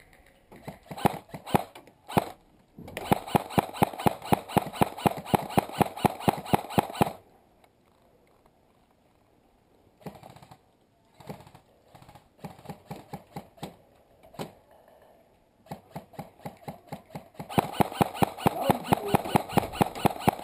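Airsoft electric rifle firing in rapid bursts of sharp mechanical clacks: one long string about three seconds in, shorter bursts in the middle, and another long string near the end.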